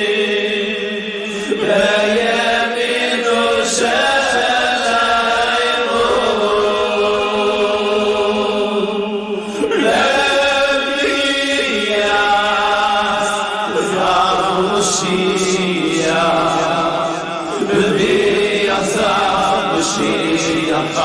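Voices singing a chant-like melody together over music, with a steady low note held underneath throughout.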